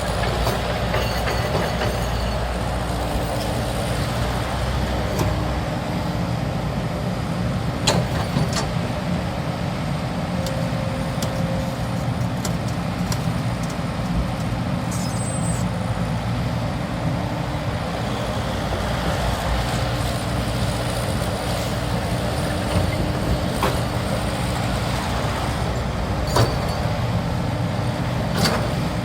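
Heavy diesel engine running steadily under load, with a few sharp knocks.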